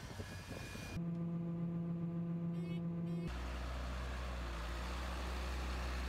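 Farm tractor engines running in short montage clips, the sound changing abruptly about a second in and again about three seconds in. The last clip is a John Deere 8310's diesel engine running steadily with a low, even tone.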